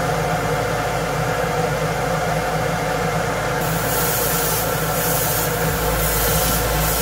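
A spray booth's extractor fan running with a steady drone; from about halfway an airbrush sprays paint in several short hissing bursts.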